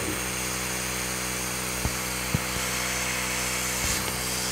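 Creality Falcon 2 laser cutter running a cut, with its built-in air-assist pump switched on and blowing air through the laser head with a steady hiss and hum. Two faint ticks come about two seconds in.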